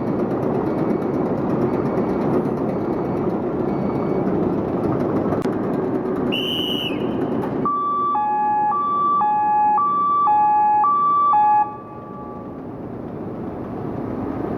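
Akasaka AX31R marine diesel main engine running on the test bed, with a short high beep. About eight seconds in the engine noise drops suddenly and a two-tone hi-lo alarm sounds four times, about once a second, then cuts off. The engine noise then builds back up.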